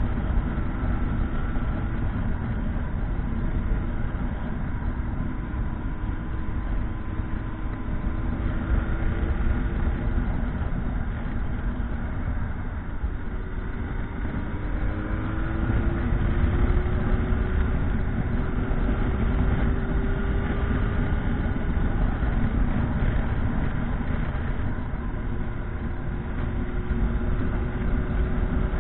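Motorcycle on the move: its engine note drifts slowly up and down under a steady, heavy rumble of road and wind noise.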